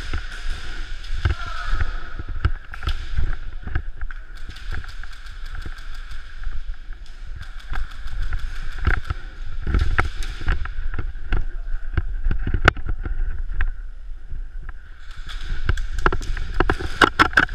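Airsoft guns firing: scattered sharp cracks and short bursts that come thickest near the end, over a low rumble from the player moving with the camera.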